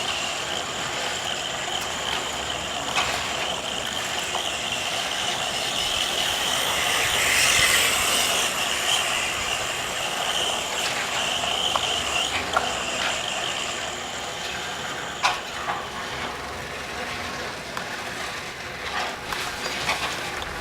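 Losi Mini 8ight RC buggy driving: a steady mechanical whine from its motor and drivetrain with tyre and ground noise. It swells once and is broken by scattered sharp knocks from bumps.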